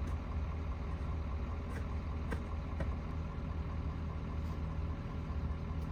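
Vehicle engine idling steadily, a low even hum, with a few faint clicks about two seconds in.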